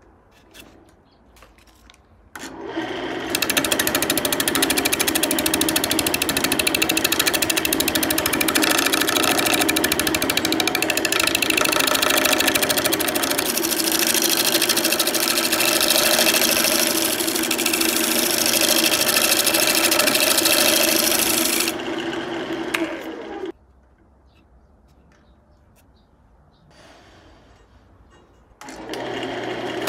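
Wood lathe spinning a walnut plate blank while a hand-held turning tool cuts its face: a loud, rough, steady scraping with a fast fine stutter, starting about two seconds in and stopping a few seconds before the end. A few light knocks come before it, and the noise starts again near the end.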